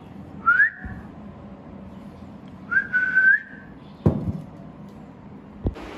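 Two short clear whistles: the first glides quickly upward, the second rises briefly then holds a steady note for about half a second. Two sharp knocks follow near the end.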